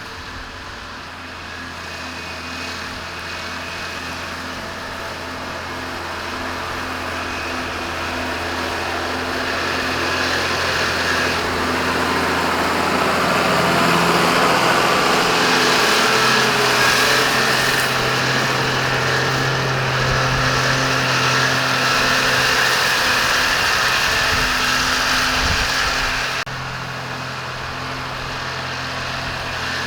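Tractor engine running steadily under load while mowing hay, growing louder over the first half, with a sudden drop in level a few seconds before the end.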